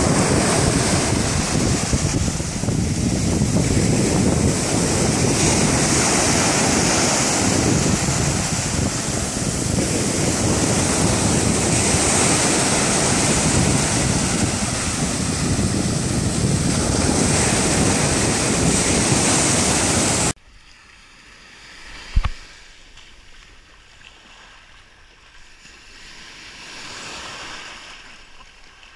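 Sea surf breaking and washing up a sandy beach, with strong wind buffeting the microphone. About twenty seconds in it cuts off abruptly to a much quieter, faint wash of water, broken once by a sharp knock.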